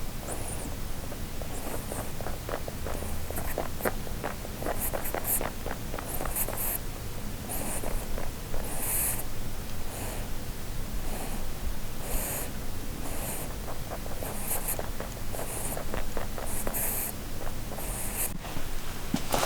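A sleeping Holland lop rabbit snoring: short raspy, snuffly breaths about once a second, some with a fine clicking rattle. This kind of sleep snoring is common in Holland lops because of their facial bone structure, and vets found this rabbit healthy.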